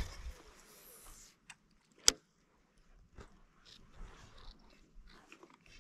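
Light handling sounds: scattered small clicks and rustles, with one sharp click about two seconds in.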